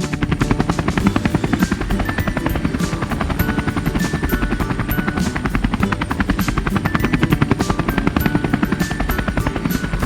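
Helicopter rotor sound effect, a fast, steady chopping, over light background music.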